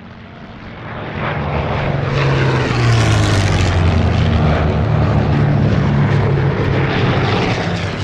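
Piston-engined World War II fighter planes passing low overhead, the propeller engine sound building over the first two seconds and then staying loud, its pitch dropping slightly about three seconds in as an aircraft goes by.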